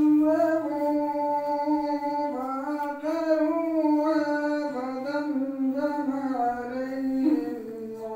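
A single voice chanting one long, unaccompanied melodic phrase in a devotional style, with drawn-out held notes and small ornamental turns. The phrase ends near the end.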